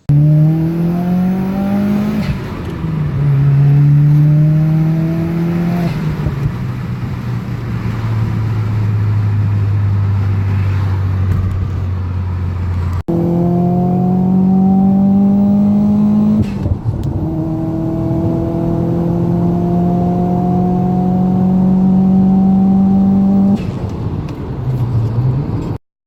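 2016 Subaru WRX's turbocharged FA20DIT flat-four engine, fitted with TGV deletes, a catless downpipe and an Invidia N1 exhaust, pulling hard under acceleration. Its loud note climbs steadily in pitch, then drops sharply several times as at gear changes.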